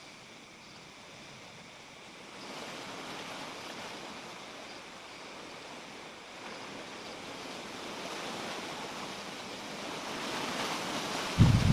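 Wind outdoors, a steady rushing hiss that grows louder about two seconds in and keeps building, with a few loud low thumps near the end.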